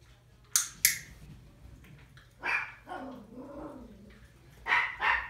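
Miniature Pinscher puppy giving short, sharp barks in separate bursts: a quick pair under a second in, one at about two and a half seconds, and another pair near the end.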